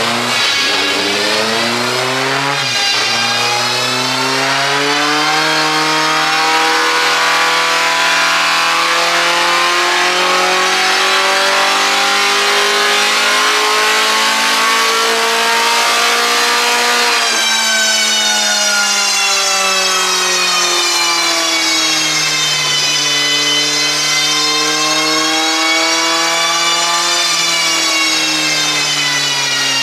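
Mk2 Ford Cortina race car's engine running on a rolling road during a power run. After a quick dip near the start, the revs climb steadily under load for about fourteen seconds and drop away suddenly, then rise and fall more gently.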